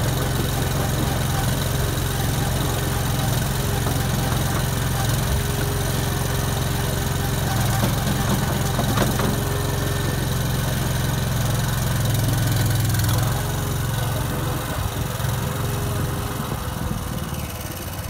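Cormidi C85 tracked self-loading concrete mixer's engine running steadily as its hydraulic loading shovel is worked, tipping into the drum and then lowered. The engine sound eases about thirteen seconds in and falls a little further near the end.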